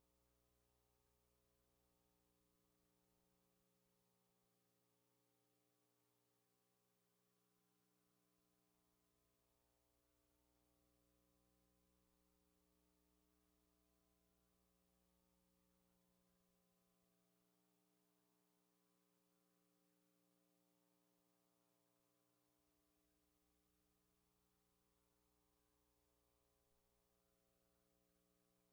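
Near silence: only a faint, steady electrical hum, with no sound from the scenes themselves.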